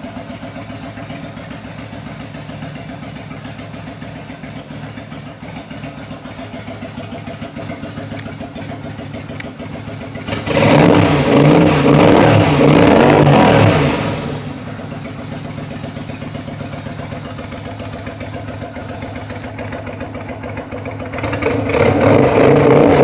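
V-Blade cruiser motorcycle idling through a Roncar JJ Curvo aftermarket exhaust, revved up twice: once for about three seconds midway, and again near the end.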